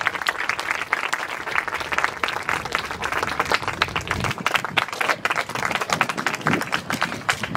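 A large audience of children clapping together in steady, dense applause.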